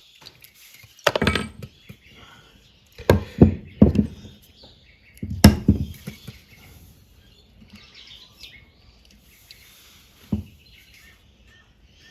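Lubricant squirted onto a seized Sidchrome ratchet handle, with several sharp knocks and clunks as the ratchet and can are handled, the loudest about three to five and a half seconds in. Birds chirp faintly in the background.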